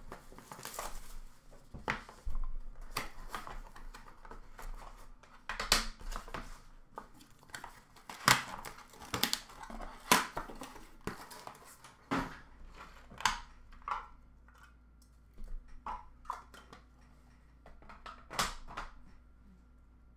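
Hands unwrapping and handling a sealed trading-card box: plastic shrink-wrap crinkling and tearing, with irregular clicks and knocks of cardboard and hard plastic card cases. The handling is busiest in the first half and thins out to occasional clicks later.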